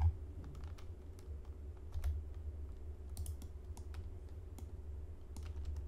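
Computer keyboard keys pressed a few times, single separate clicks about a second apart, over a steady low hum.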